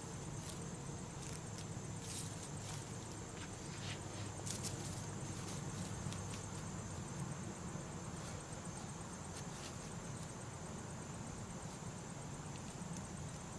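Quiet woodland ambience: a steady high insect drone with scattered faint clicks and rustles, strongest a couple of seconds in and again around the middle.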